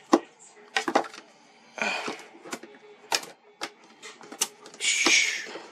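Scissors snipping at packaging: a series of sharp clicks, with two short rustling cuts about two seconds and five seconds in.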